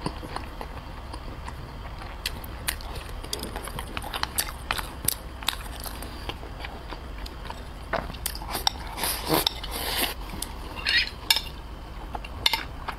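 Close-miked chewing of braised pork belly and rice soaked in its sauce: wet mouth sounds and bites. Chopsticks tap against a porcelain rice bowl, and near the end a spoon clinks on the serving plate as it ladles sauce.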